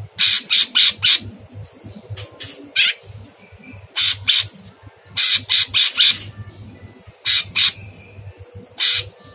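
A caged cucak cungkok leafbird calling with harsh, rasping notes, given singly and in quick runs of two to four, with a few faint whistled notes in between.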